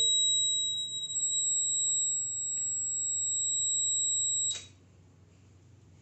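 Electronic buzzer sounding one continuous high-pitched beep that stops abruptly about four and a half seconds in.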